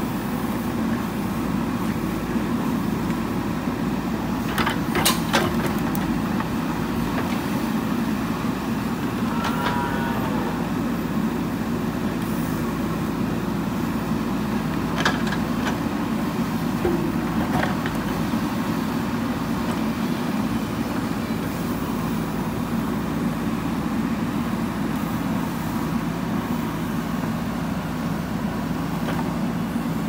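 JCB 3DX backhoe loader's diesel engine running steadily while its hydraulics work the backhoe arm and bucket digging soil. There are a few sharp metallic clanks, about five seconds in and again in the second half.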